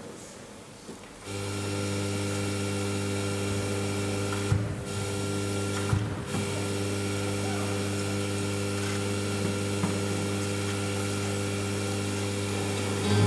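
Steady electrical mains hum from the sound system, switching on suddenly about a second in, with two short knocks and brief dropouts a few seconds later.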